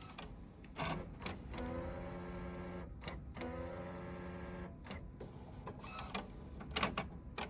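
Epson inkjet printer running its ink initialization, charging ink up into the print head: a few mechanical clicks, then two stretches of steady motor whine about two and four seconds in, with more clicks and clatter near the end.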